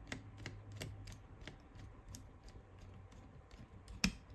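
Faint, scattered small clicks and ticks of small screws being handled and driven back into an airsoft gearbox shell, with one sharper click about four seconds in.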